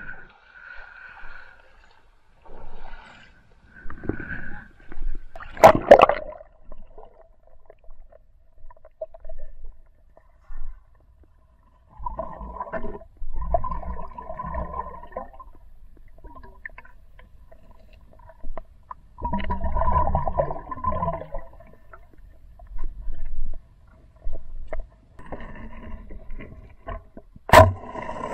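Muffled underwater gurgling and bubbling, heard through a submerged camera, in irregular bursts a few seconds apart. Two sharp clicks stand out, one about six seconds in and one near the end.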